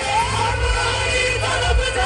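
Amplified live qawwali music: a sung melody gliding up and down over a steady, heavy drum beat.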